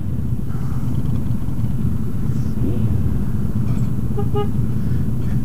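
Motorcycle engine running at low speed with a steady low rumble, and a vehicle horn giving two short toots about four seconds in.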